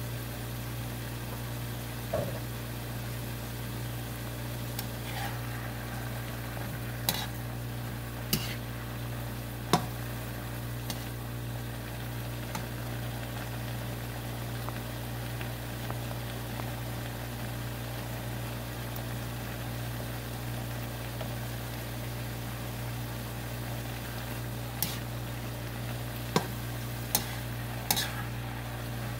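Yardlong beans and pork belly sizzling in a nonstick wok over a steady low hum, with a plastic spatula stirring and clacking sharply against the pan several times, mostly in two bunches, a third of the way in and near the end.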